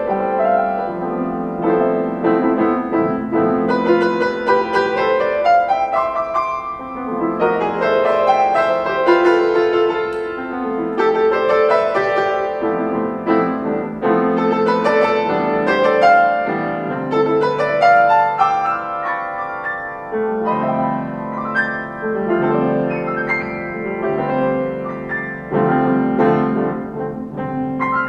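Solo piano playing continuously, many notes and chords with sustained, blurred harmonies.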